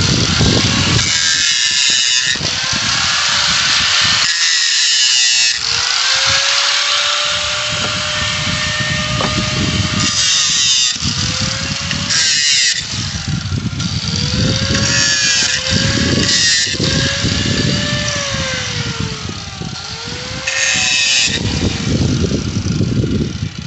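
Mini angle grinder with a cutting disc cutting steel nails off pallet boards. The motor's whine repeatedly sags and recovers as the disc bites, with several short, shrill bursts of metal being cut. Wind buffets the microphone.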